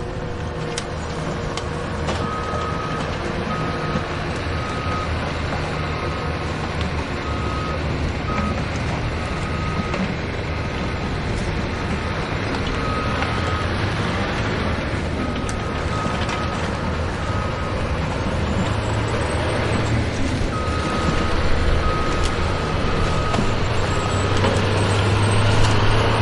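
Heavy diesel machinery running at the sand loading, with a back-up alarm beeping a bit under twice a second in several stretches with pauses between them. The engine grows louder near the end as it works harder.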